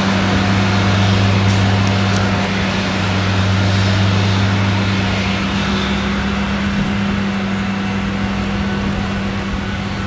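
Claas Jaguar 970 self-propelled forage harvester with an Orbis 750 maize header chopping maize: a steady, deep engine hum over the rushing hiss of the chopper and the crop stream, easing off slightly in the second half. The tractor pulling the trailer alongside runs underneath it.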